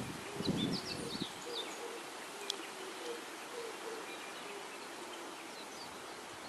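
Outdoor ambience by rice paddies: wind buffets the microphone for about the first second, then small birds chirp in short quick notes while a faint insect-like buzz comes and goes over a steady background hiss.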